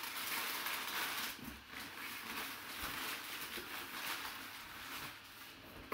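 Crumpled packing paper rustling as hands dig through a cardboard box to pull out what is packed inside.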